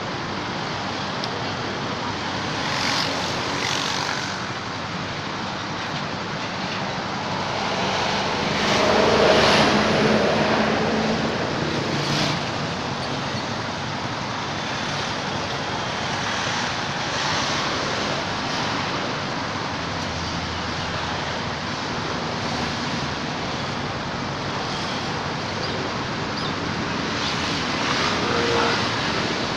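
Steady road-traffic noise, swelling as a vehicle passes about nine seconds in and again near the end.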